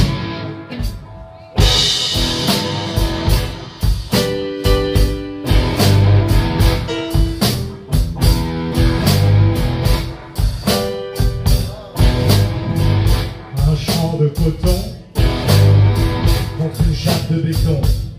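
Live blues band playing electric guitars, bass guitar and drum kit at a steady beat. The band drops out for about a second just after the start, then comes back in together.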